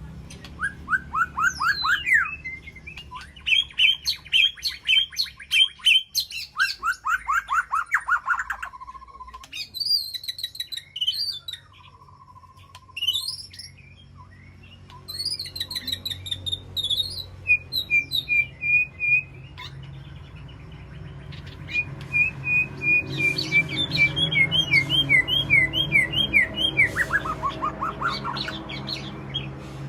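White-rumped shama singing: a long run of varied phrases made of rapid repeated notes and trills, several sliding downward, broken by short pauses. A steady low hum runs underneath.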